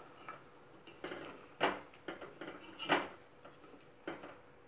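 A white spatula scraping and knocking against the side of a stainless steel pot while stirring reduced milk, working the cream from the pot's sides back into the milk. There are a few separate scrapes, the loudest about one and a half and three seconds in.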